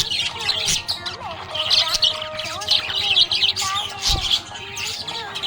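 Budgerigars chirping busily: a dense stream of short, high chirps over lower wavering warble notes.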